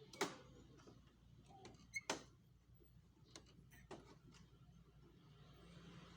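A few short, sharp clicks and knocks from parts of a copier's automatic document feeder being worked loose by hand. The loudest come about a fifth of a second in and a double one about two seconds in, with fainter ones near the middle; between them it is near silent.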